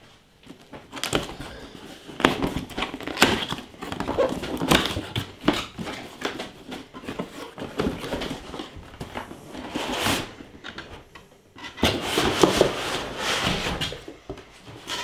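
Cardboard shipping box being opened by hand: packing tape peeled off and the cardboard flaps scraped, rustled and pulled open in irregular bursts.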